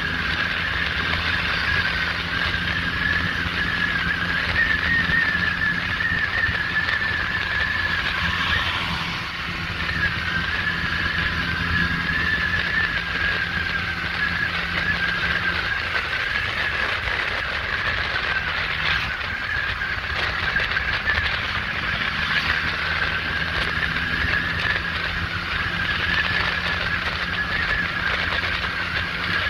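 Scooter engine running steadily at road speed with a wavering whine, over road and wind noise. The whine drops out briefly about nine seconds in, then picks up again.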